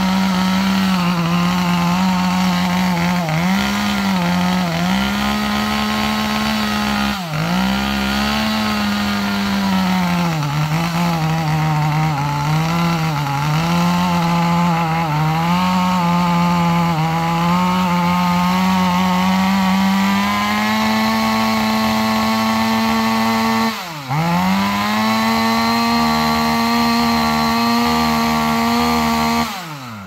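Top-handle two-stroke chainsaw running at high revs while cutting through birch, its engine note sagging and recovering repeatedly as the chain loads up in the cut. The throttle is briefly released about 7 seconds in and again about 24 seconds in, and it drops off to idle right at the end.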